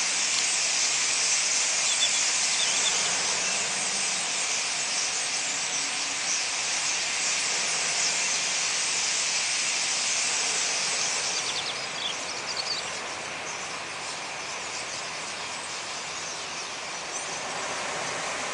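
A huge flock of common starlings gathering to roost in trees, thousands of birds chattering and whistling at once in a dense, continuous wall of calls. The chatter gets quieter and thinner about two-thirds of the way through.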